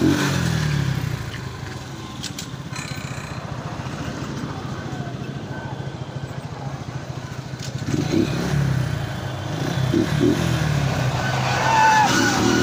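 Motorcycle engine running at low road speed, its note rising and falling with the throttle. It goes quieter for several seconds in the middle, then picks up again toward the end.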